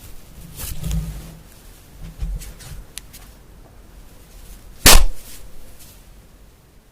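Objects being handled close to the microphone: soft rustles and small clicks, then one sharp, loud click or tap about five seconds in.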